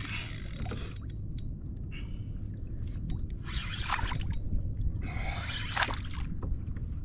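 Wind rumbling on the microphone over water sloshing around a kayak, with a few short clicks early on and two louder rushes of noise around three and a half and five and a half seconds in.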